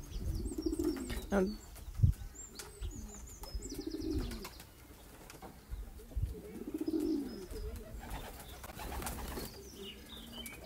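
Racing pigeons cooing: several drawn-out, rounded coos a second or two apart, with small birds chirping high above them early on and again near the end. A sharp knock about two seconds in is the loudest sound.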